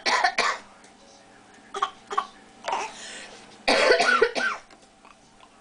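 Several short coughs in separate bursts, the loudest cluster about four seconds in.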